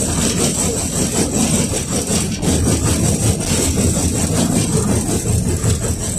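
A KTM-5 (71-605A) tram in motion, heard from inside the passenger car: steady low running noise of the car travelling along the track, with a steady high hiss.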